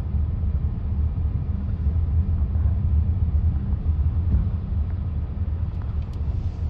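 Steady low rumble of a car's engine and road noise, with nothing else standing out.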